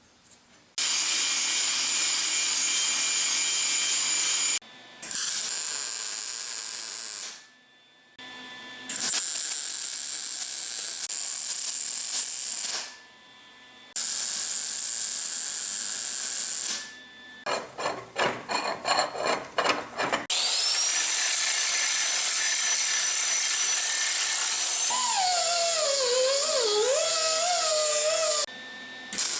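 A handheld power tool grinding the zinc plating off coupler nuts so they can be welded. It runs in several bursts with short stops between them. Near the middle it is pulsed on and off in quick short spurts, and near the end its pitch wavers under load.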